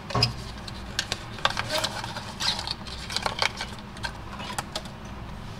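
Scattered light clicks and rustles of hands handling a small wired Maono helmet microphone, its cable and its paper packaging.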